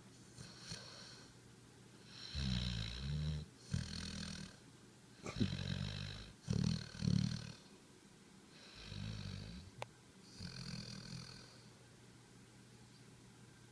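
A sleeping pet snoring in a series of breaths, each about a second long, with the loudest snores near the middle.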